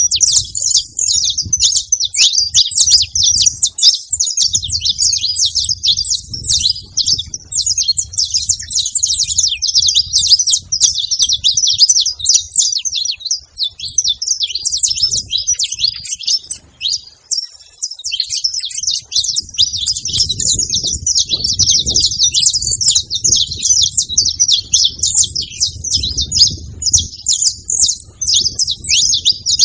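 A flock of saffron finches chirping together, many short high calls overlapping into a continuous chatter.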